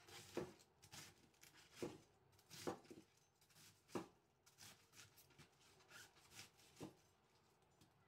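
Cleaver cutting cabbage on a wooden cutting board: faint, irregular chops, about five sharper ones with softer crunching cuts between.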